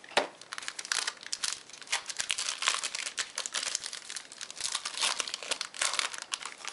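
Silver foil wrapper of a trading-card pack being torn open and crumpled by hand: a dense, irregular run of crinkling crackles.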